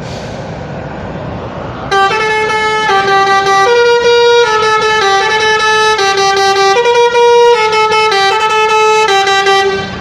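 Coach's 'telolet basuri' multi-tone horn playing a tune of held notes, often two sounding together, stepping up and down. It starts about two seconds in, over the low rumble of the bus, and stops just before the end.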